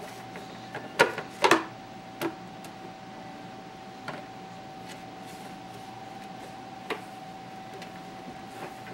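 A few sharp knocks and clatters, the loudest two about a second and a second and a half in, with smaller ones after, over a steady faint tone.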